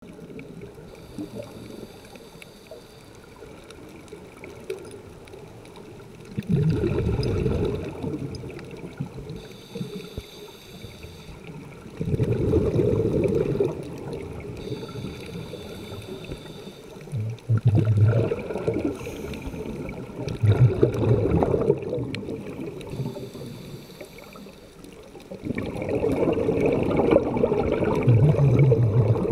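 A scuba diver breathing through a regulator, heard underwater: loud rushes of exhaled bubbles about every five to six seconds, with quieter stretches between breaths.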